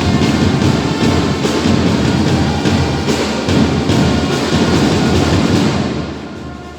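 Loud orchestral-style music with heavy drums and timpani, dipping in level near the end.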